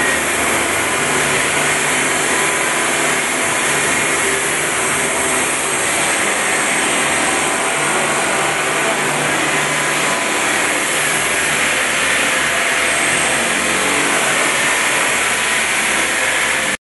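CB Electric mini excavator's electric hydraulic power unit running steadily while its bucket and hydraulic thumb grip and handle concrete slabs. The sound cuts off suddenly near the end.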